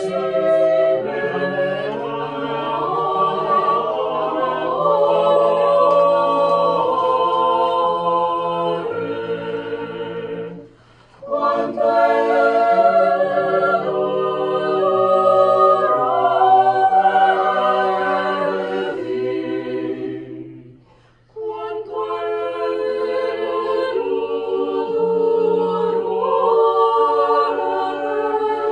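Mixed chamber choir singing a cappella in several parts, breaking off briefly between phrases about eleven and twenty-one seconds in.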